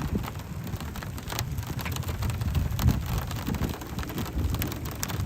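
Gusty storm wind rumbling against the microphone, with scattered sharp ticks of raindrops hitting.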